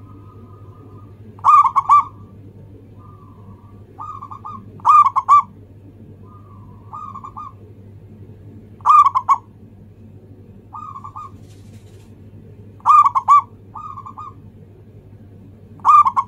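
Zebra dove (local perkutut) cooing its song: a loud, rolling coo about every four seconds, five times, each followed by softer, shorter coo notes.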